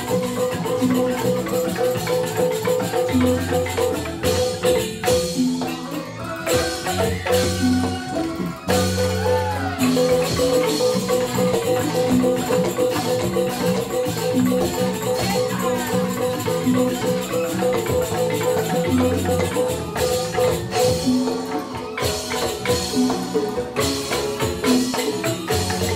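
Joged bumbung gamelan music: bamboo xylophones play a fast, evenly repeating pattern over recurring low notes, with a few sharp percussive hits.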